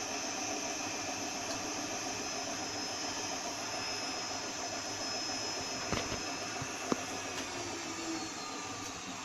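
Bosch WMV 1610 washing machine spinning its empty drum at high speed in the final spin: a steady rushing hum with a high motor whine. About seven seconds in the whine starts to fall in pitch as the spin begins to slow, and two short sharp clicks come about a second apart just before.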